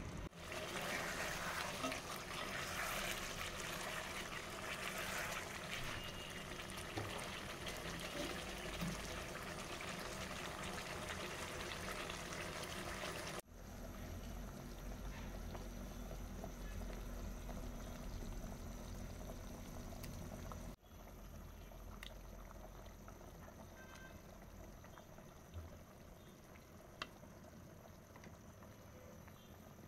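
Beef and potato curry bubbling as it simmers in the pot: a steady bubbling hiss that drops quieter at abrupt cuts about 13 and 21 seconds in.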